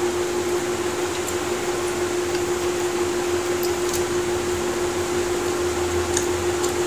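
Steady hum of an electric fan running, with one constant tone under an even rushing noise. A few faint short clicks, such as fingers on steel plates while eating, sit on top of it.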